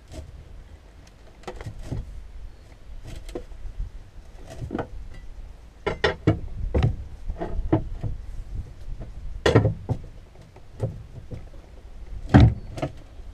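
Pry bar levering an outboard motor on an aluminum boat transom: a string of scattered metal clanks and knocks as the bar shifts and bites. The two loudest come about halfway through and near the end.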